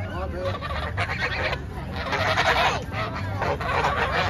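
White domestic geese honking in agitation, with repeated honks and a loud run of honks about two seconds in.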